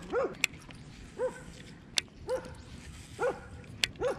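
A dog barking, short single barks about one a second, with a few sharp clicks in between.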